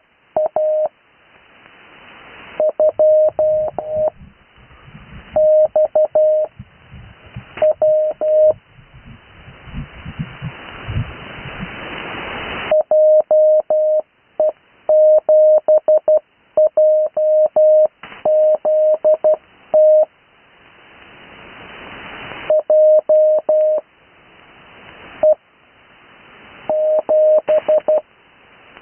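Morse code on a single steady tone of about 600 Hz, keyed in groups of dots and dashes as call signs are sent. It is heard over an 80 m amateur radio link, with band hiss that swells in the pauses between characters.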